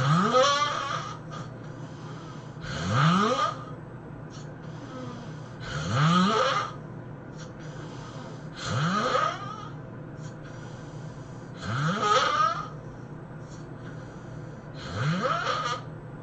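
A man snoring loudly and rhythmically in his sleep, six snores about three seconds apart, each one rising in pitch as it goes.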